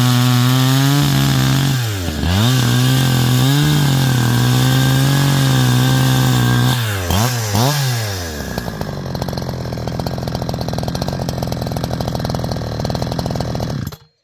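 A 70cc chainsaw with a 25-inch bar bucking a hard Stringybark log, running at high revs. Its pitch dips sharply and recovers a few times, about two seconds in and again around seven seconds. Near eight seconds it drops to a lower, rough-running idle, and the sound cuts off abruptly at the end.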